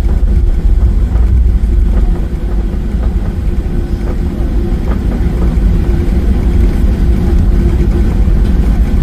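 Jet airliner's engines and airframe heard from inside the cabin: a loud, steady low rumble with a faint steady hum above it.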